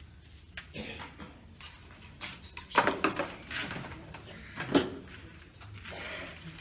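Gritty potting mix being handled and poured into a bonsai pot: scattered rustling and scraping, with two sharp knocks, about three seconds in and again near five seconds.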